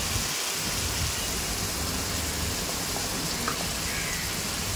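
Onion-tomato spice masala sizzling steadily in oil in a kadhai as it cooks down.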